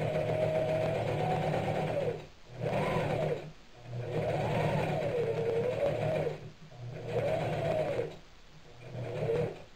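Singer electric sewing machine stitching a seam in short runs. Its motor whine rises and falls with speed, and it stops briefly several times before starting again.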